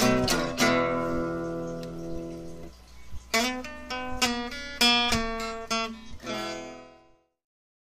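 Acoustic guitar music: picked notes and a ringing chord, a short lull, then another run of plucked notes that fades and cuts off near the end.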